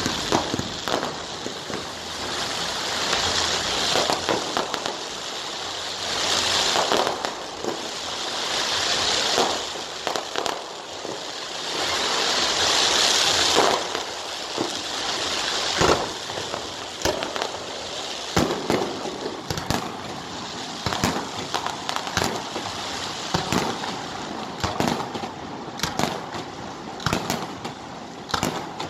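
Harbour fireworks display: repeated sharp bangs of bursting shells mixed with crackling. In the first half the crackling swells in several long stretches; later the bangs come more separately.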